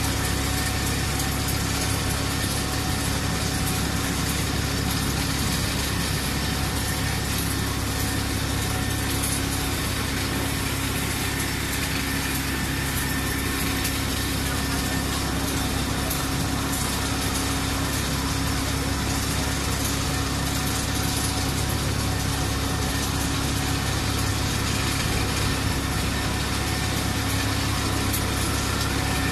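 Small engine of a slope monorail running steadily as the car travels along its rail, with a constant low drone and no change in speed.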